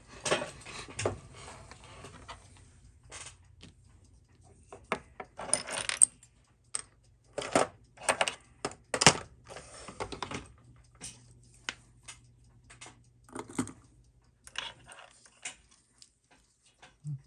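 Small metal watchmaker's tools and watch parts clicking and scraping on a workbench during disassembly of a Seiko Y187-7A30: irregular light clicks and short scrapes, a few sharper clinks among them.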